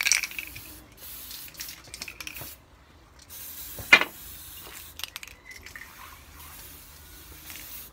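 Aerosol spray can hissing in broken bursts, with a sharp clack about four seconds in.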